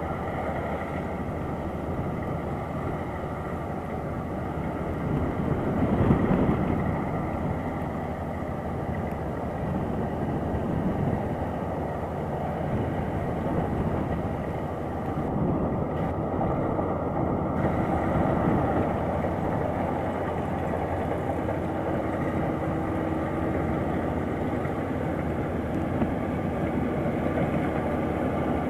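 Kubota DC-35 combine harvester running steadily as it cuts and threshes standing rice, its diesel engine working under load, with a brief swell about six seconds in.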